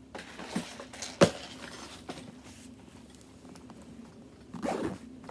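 Plastic tackle boxes knocking and rustling as they are packed into a fishing bag, with one sharp knock a little over a second in and a louder bit of handling near the end.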